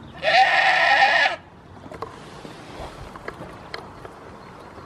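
A goat bleating once near the start: one loud, wavering call lasting about a second.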